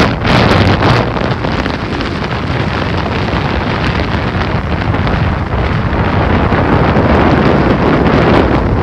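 Strong wind blowing hard on the microphone, a loud rushing rumble with sharp gusts in the first second.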